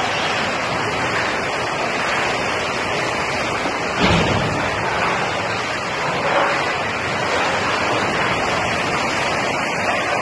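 Steady rushing water noise from a camera inside the flooded hull of a sunken ferry, with a brief louder surge about four seconds in.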